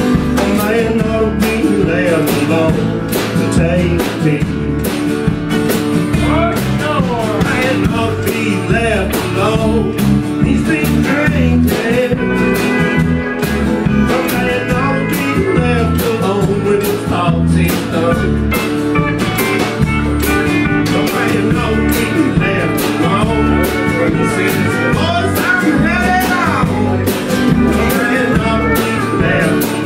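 Live country band playing: pedal steel guitar, electric bass, acoustic guitar and drums over a steady beat, with sliding high notes above.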